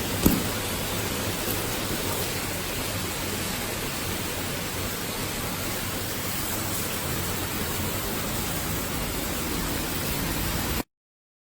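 Steady hiss of heavy storm rain and wind, with one sharp knock about a quarter of a second in. The sound cuts off abruptly near the end.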